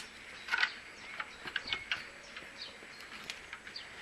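Faint bird chirps in the background, mixed with a few small scattered clicks.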